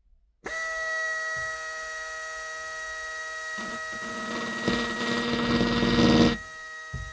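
Old angle drill starting up about half a second in and running with a steady whine. From about three and a half seconds to just after six seconds a louder, rougher grinding joins it as the bit is pressed against the windshield glass, drilling a stop hole at the end of a crack.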